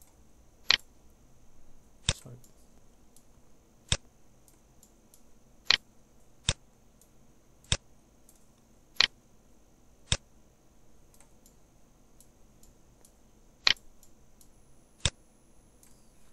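Computer mouse button clicking, about ten single sharp clicks at uneven intervals, with a faint steady high whine underneath.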